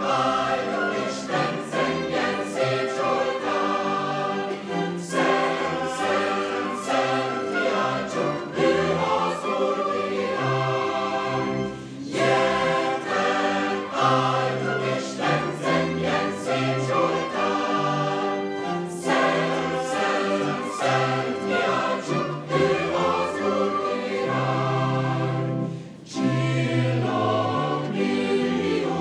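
A church choir singing, many voices together in held, changing chords, with deep voices carrying the low part.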